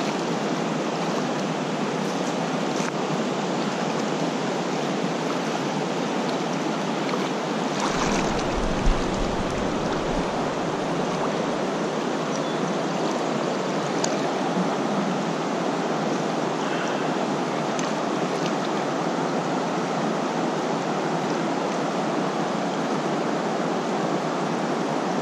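Steady rushing of a fast-flowing creek's current. About eight seconds in there is a brief low rumble with a single knock.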